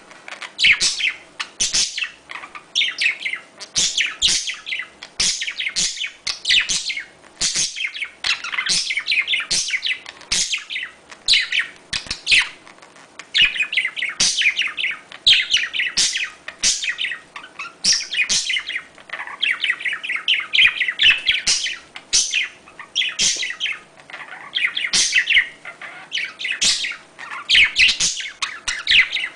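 Budgerigars chattering and warbling nonstop in rapid chirping bursts: courtship and mating calls.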